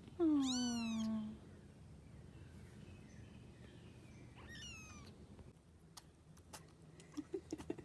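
Young kittens meowing: one loud, long meow falling in pitch, then a fainter, higher meow a few seconds later. A scatter of light clicks follows near the end.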